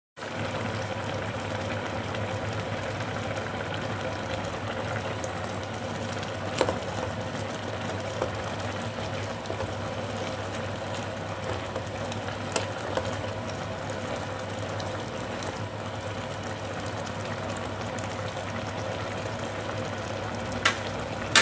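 Steady hum of an induction cooktop under a stainless steel pot of soup bubbling at the boil, with a few sharp clinks of a ladle against the pot.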